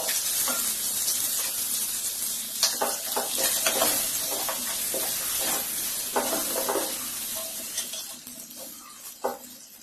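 Onion and potato frying in hot oil in a curry pan, sizzling loudly, with a spoon stirring and scraping the pan in short strokes. The sizzle dies down gradually toward the end.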